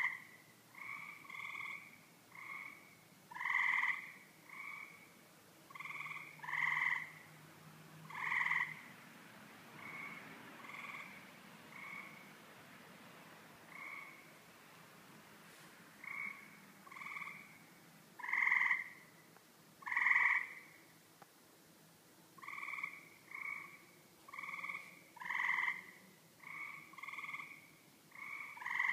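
Two animals in a tree calling over and over: short calls of about half a second each, one every second or two, some louder than others, with a quieter, sparser stretch in the middle. The uploader takes them for birds and does not know the species.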